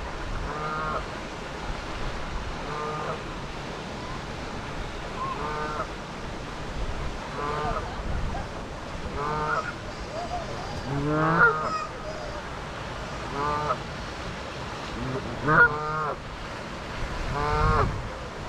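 Canada geese honking, about one call every two seconds.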